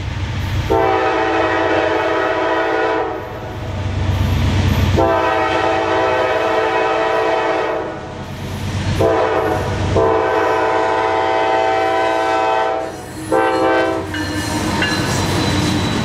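Nathan Airchime K5LA horn on a Norfolk Southern GE Dash 9 locomotive sounding the grade-crossing signal: three long blasts and a short one, over the low rumble of the diesel locomotive and train approaching.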